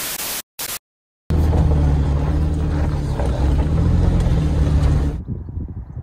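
Two short bursts of TV-static hiss from a glitch transition effect, then a brief silence. After that comes a loud, steady low rumble with a hum through it, which stops abruptly about five seconds in.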